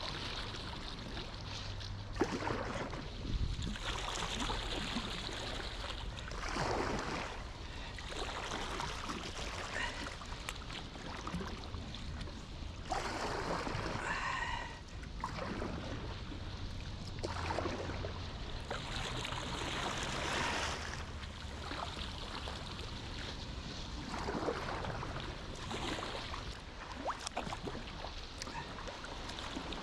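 Kayak paddle strokes in calm sea water: the blade splashing and water trickling off it, a stroke every two to three seconds.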